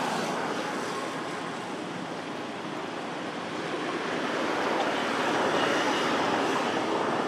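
Steady rushing outdoor background noise, dipping slightly and then growing a little louder in the second half.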